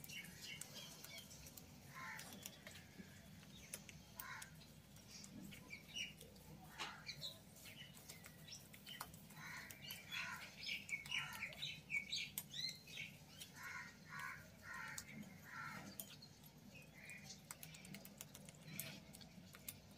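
Faint scraping and clinking of a metal spoon stirring mashed roasted eggplant in a metal kadai, in many short strokes that come more often in the middle.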